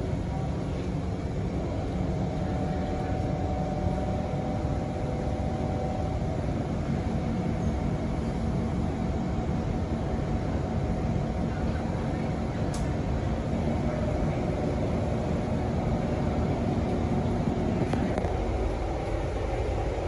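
Steady mechanical hum of a Kawasaki Heavy Industries C151 MRT train car standing at a platform with its doors open, with a few faint held tones and one sharp click about thirteen seconds in.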